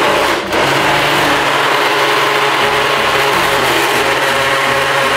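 Ninja personal blender running at full speed, its motor loud and steady as it blends a full cup of fruit, oats and almond milk into a thick protein shake. It stutters briefly about half a second in, then runs on evenly.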